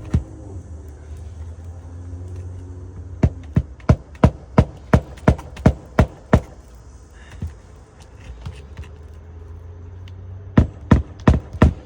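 Hammer driving roofing nails into an asphalt shingle: a run of about ten sharp strikes at roughly three a second, a pause, then another run starting near the end.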